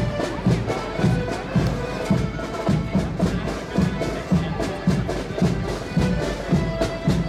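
Marching accordion band playing a march: massed piano accordions carrying the tune over bass drum and snare drums, the drum beating about twice a second.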